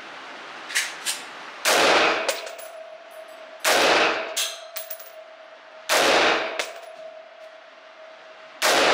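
Black Rain Ordnance Spec15 AR-15 rifle firing four single shots about two seconds apart, each loud report echoing in an indoor range. Thin sharp clicks fall between the shots.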